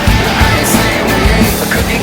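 Loud rock music with a driving beat and singing.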